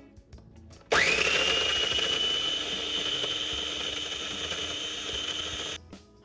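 Electric food processor running, chopping chunks of onion: the motor starts suddenly about a second in, its whine climbing quickly to a steady pitch, runs for about five seconds, then cuts off abruptly.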